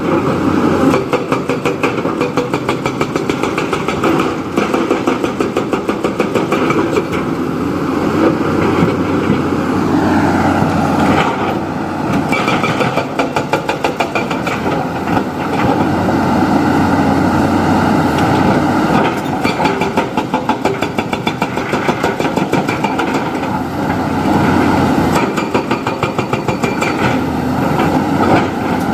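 Diesel engine of a backhoe loader running continuously under work, with a rhythmic throb; its note rises about ten seconds in and stays up.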